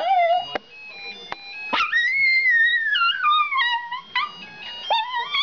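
Toy terrier howling on cue to "sing". A short howl ends just after the start. A long howl follows about two seconds in, starting high and sliding down in pitch, and another howl rises near the end.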